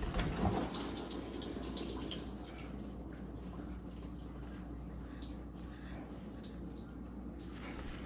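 KitchenAid dishwasher running, with water swishing and ticking inside over a steady low motor hum. A brief handling bump comes right at the start.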